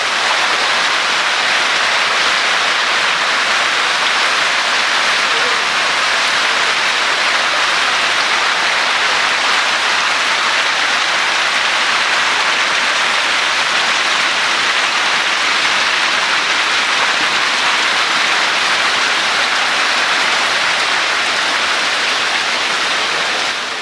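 A tank crowded with hybrid magur catfish fingerlings thrashing at the water's surface in a feeding frenzy, making a loud, steady splashing.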